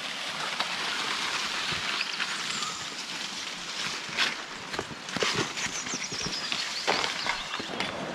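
Footsteps knocking and scuffing over stones along a forest stream, with a few sharp knocks, over a steady rush of running water.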